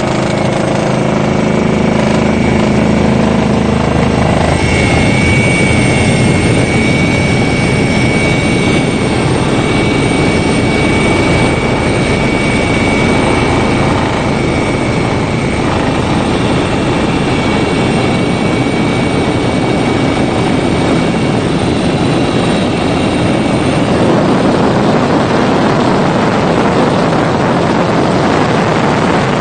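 Helicopter engine and rotor noise heard from aboard: a loud, steady rush with a thin high whine that fades out in the last few seconds.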